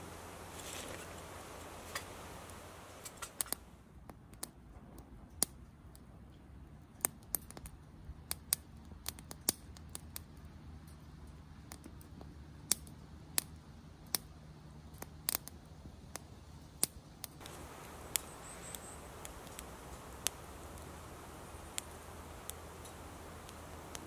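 Wood fire crackling in a small Bushbox LF Titanium folding wood stove: irregular sharp pops and snaps over a low steady hiss.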